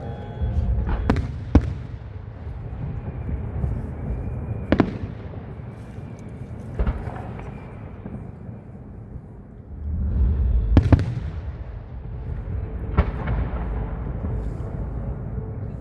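Aerial fireworks display: about seven sharp shell bursts a few seconds apart, each bang followed by a short echo, over a continuous low rumble of further bursts.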